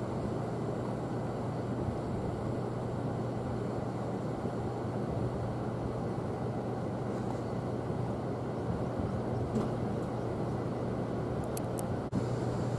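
A steady low rumble with a constant low hum, even in level throughout, with a momentary break about twelve seconds in.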